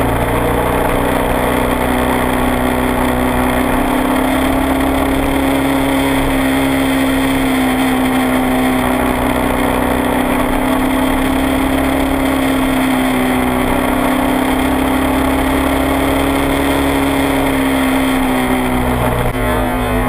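Kawasaki Ninja 250R parallel-twin engine with a Dan Moto aftermarket exhaust, running at steady cruising revs, its note rising and falling gently.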